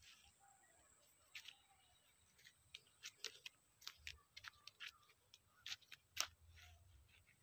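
Near silence with faint, irregular sharp clicks and ticks scattered through it, over a faint steady high-pitched whine.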